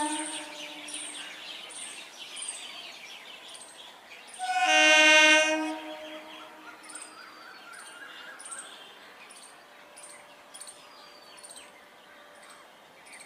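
Electric multiple unit (EMU) local train's horn sounding one blast of about a second and a half, about four seconds in, as the train approaches; the tail of an earlier blast fades out at the start. A bird chirps repeatedly, about twice a second, through the rest.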